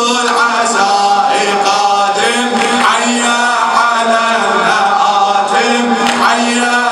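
A man's voice chanting an Arabic Muharram mourning lament into a microphone, in long held sung lines.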